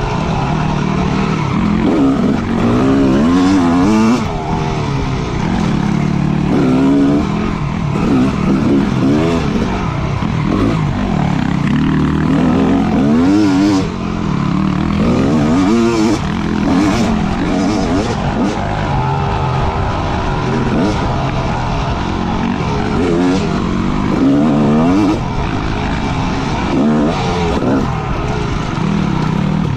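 Motorcycle engine running while riding, its pitch rising and falling over and over as the throttle is opened and closed.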